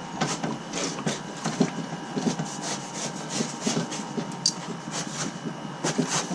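Mini tubing cutter being turned around a copper water pipe, with irregular scraping clicks several times a second as the cutting wheel scores the pipe.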